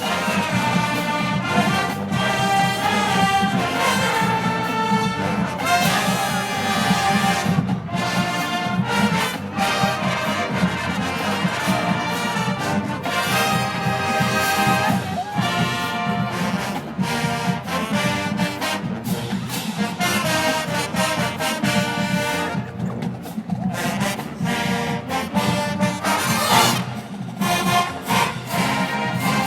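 A university marching band playing a brass-heavy tune, trombones and trumpets over drums keeping a steady beat.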